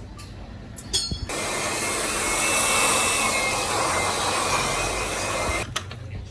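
A workshop power tool runs in one steady burst of about four seconds, a loud hiss with a faint whine, starting a moment after a clink about a second in and cutting off sharply near the end.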